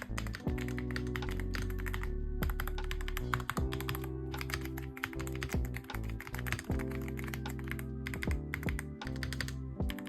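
Typing on a Magegee Light87 mechanical keyboard with Blue Whale switches: a fast, irregular run of keystroke clicks. Background music with steady low notes plays underneath.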